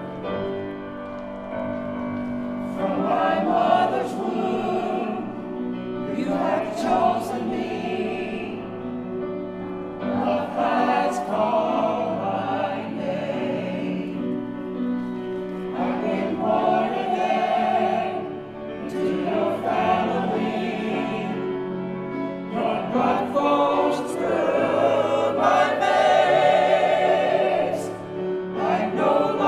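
Church choir of men and women singing an anthem with accompaniment. The voices come in about two and a half seconds in over a short instrumental introduction, then sing in swelling phrases a few seconds long.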